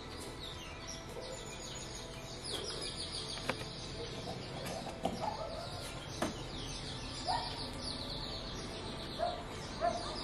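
Background chorus of rapid high chirping calls, over which about five short, lower calls stand out as the loudest sounds, along with a few light clicks.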